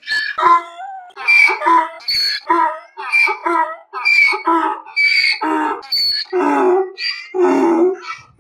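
Donkey braying: a long run of hee-haws, high in-breath notes alternating with lower out-breath notes, about two a second.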